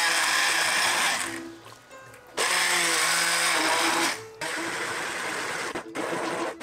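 Immersion blender running in a pot of roasted vegetables and broth, pureeing them into soup. It stops about a second and a half in, starts again about a second later, and runs more quietly in the last couple of seconds.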